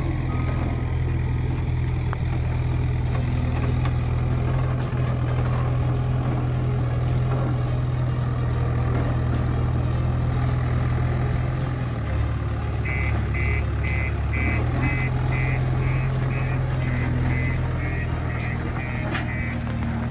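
JCB 530-110 telehandler's diesel engine running steadily under the bale work, its note shifting briefly a little past halfway. As it changes, the reversing alarm starts beeping, about two beeps a second, for six or seven seconds while the machine backs away.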